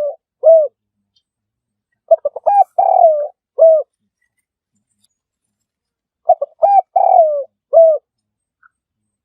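Spotted dove cooing its 'coo-a-roooo' phrase: a few quick short notes, then a longer falling coo and a short closing coo. The phrase comes twice, about four seconds apart, with the end of an earlier phrase right at the start.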